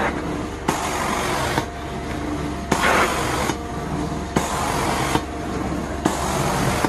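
Carpet-cleaning machine running with a steady low hum, its suction rushing louder in regular strokes about once every second and a half to two seconds, as the cleaning head is worked back and forth over the carpet. A sharp click marks the start of several strokes.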